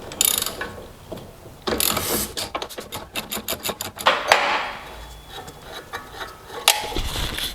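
Ratchet wrench clicking as it works a nut, with a run of rapid even clicks a little over halfway through and a few shorter rasping bursts around it.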